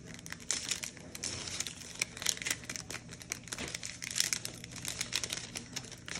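Trading-card pack wrapper crinkling and tearing in the hands as the pack is opened: a dense run of irregular crackles.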